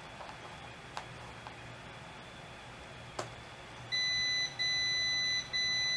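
Multimeter continuity beeper sounding a steady high beep about four seconds in, cutting out briefly twice as the ROM switcher's toggle switch is wiggled. The continuity comes and goes: the switch contact is intermittent, which the owner takes for a bad switch.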